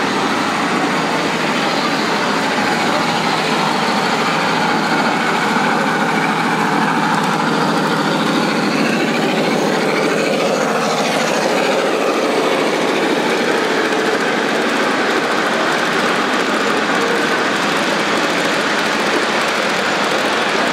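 G scale model train, a diesel locomotive pulling tank cars, rolling along the track with a steady rumble of wheels and motor. The sound changes briefly about halfway through as the locomotive passes close.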